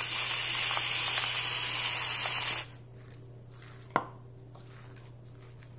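Salt grinder grinding salt over a bowl of raw chicken strips: a steady gritty hiss for about two and a half seconds, then one sharp click near four seconds.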